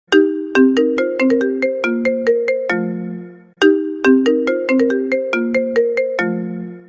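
Background music: a short melody of quick, sharply struck notes that die away. The same phrase of about three and a half seconds plays twice, with a longer low note closing each pass.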